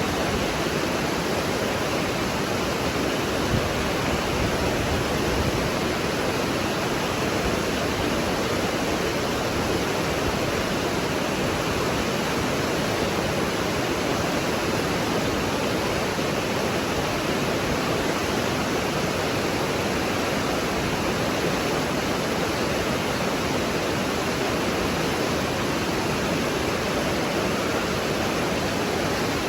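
Running water rushing steadily: an even, unbroken hiss with no splashes or breaks.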